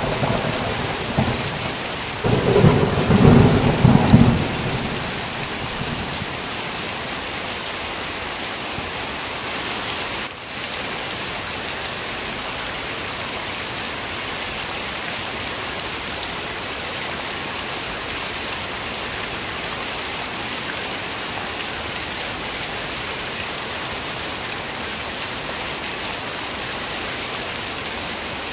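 Heavy rain falling steadily, with thunder rumbling in the first few seconds: one roll dying away at the start and another about two seconds in that fades after a couple of seconds.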